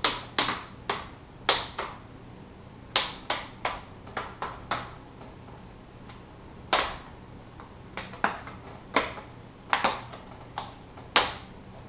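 Plastic screen bezel of a Dell Inspiron 15R 5537 laptop being pried off by hand, its retaining clips snapping loose one after another in sharp clicks, about twenty, some in quick runs of two or three.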